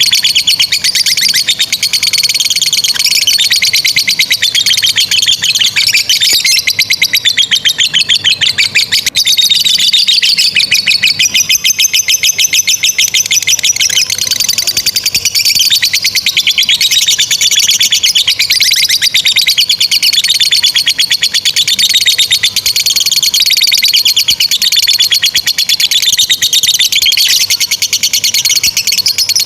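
Lovebirds giving a long, unbroken 'ngekek' chatter: a shrill trill of very fast repeated notes that runs on without a pause.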